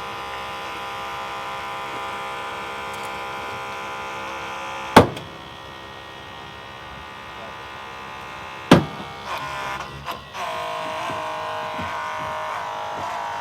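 Hydraulic rescue cutter's pump running with a steady whine, broken by two loud sharp cracks about five and nine seconds in as the cutter blades bite through a steel box hinge. A few smaller knocks follow, and the pump note drops and wavers about ten seconds in.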